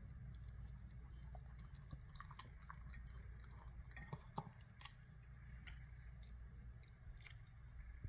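Small dog licking and eating the last bits of a yogurt fruit salad from a ceramic bowl: faint, irregular wet smacks and clicks of tongue and mouth.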